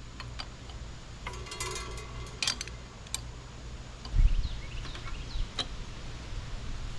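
Hand tools on the shock absorber mounts under an early Ford Bronco: a short run of rapid metal clicks about a second in and scattered single clicks and clinks. A low thump about four seconds in is the loudest sound.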